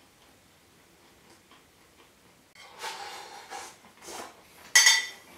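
Metal spoon scraping fried rice off a ceramic plate held up to the mouth, then a sharp clink of the spoon against the plate near the end, which rings briefly.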